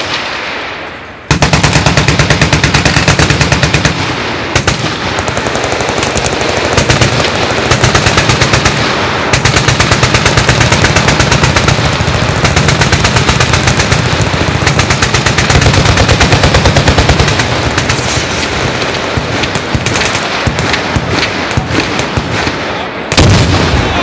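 Several machine guns firing long full-automatic strings together, a dense, continuous rattle of overlapping shots starting about a second in. It grows suddenly louder near the end.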